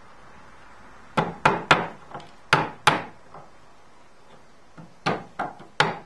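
A small hammer tapping a small nail into the wooden side bar of a Langstroth beehive frame: a quick run of about six sharp taps, a pause of about two seconds, then three more taps near the end.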